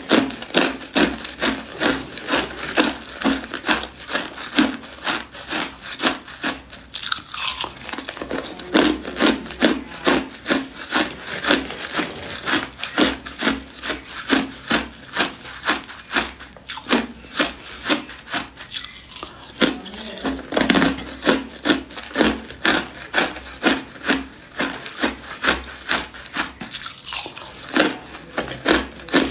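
Crushed ice being chewed close to the microphone: a steady run of crisp crunches, about two a second.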